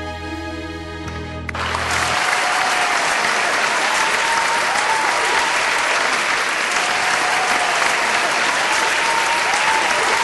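A bolero's final held chord on band accompaniment cuts off about a second and a half in, and sustained audience applause follows.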